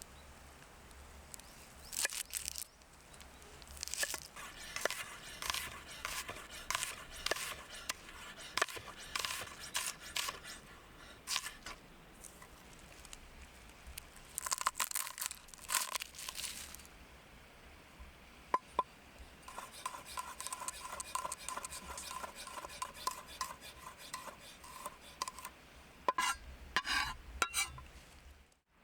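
A metal utensil scraping and clinking against a metal pan in repeated bouts of stirring, with a slight ringing to each stroke.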